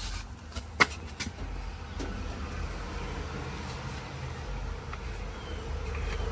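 A few sharp clicks and knocks from handling the dismantled dryer's parts, the loudest a little under a second in, over a steady low hum.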